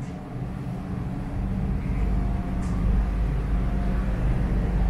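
The yacht's Cummins diesel engines drone steadily while it runs underway, with a rushing hiss of wind and water over the top. The drone grows louder about one and a half seconds in.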